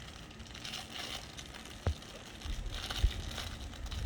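Plastic toy packaging crinkling and rustling as it is handled and pulled at to open it, with a sharp tap a little before halfway and low handling knocks in the second half.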